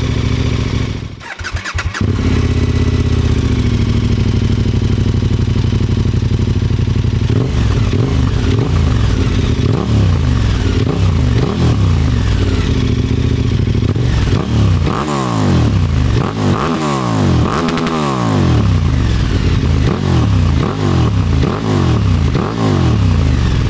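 KTM Super Adventure S's 1301 cc V-twin running through an Arrow Sonora exhaust with the rear baffle taken out. After a short break about a second in, it idles steadily, then is revved in a string of throttle blips, each falling back to idle. The highest revs come around the middle, much louder with the baffle out.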